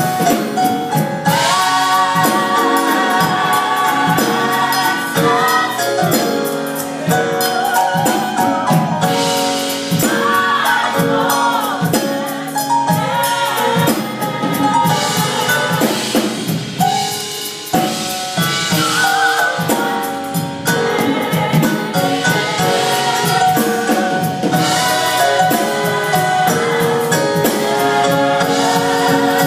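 Gospel choir singing in several voice parts over a drum-kit accompaniment.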